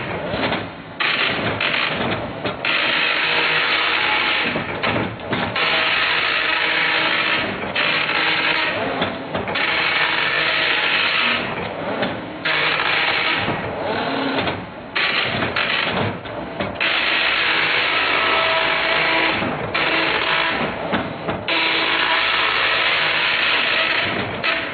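Dot matrix printer printing: the print head's rasping passes come as long bursts of one to two and a half seconds, each followed by a brief pause.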